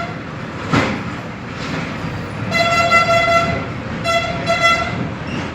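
Electronic keypad buzzer of a GSM burglar alarm giving two steady beeps, each just under a second long, as a new mobile number is keyed in; a sharp click sounds about a second before them, over a steady background hiss.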